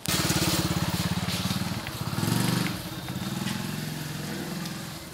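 A motorcycle engine running with a fast, even beat, starting abruptly, rising to its loudest a little past two seconds in, then easing off.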